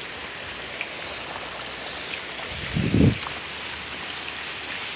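Steady hiss of rain and running floodwater, with a brief low rumble about three seconds in.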